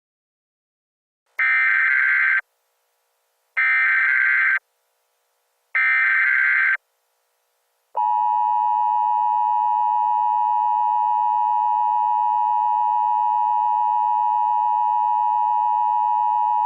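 Emergency Alert System alert signal: three one-second bursts of SAME header data, a harsh digital screech, then about eight seconds in the steady two-tone EAS attention signal begins. It marks the start of an emergency alert message.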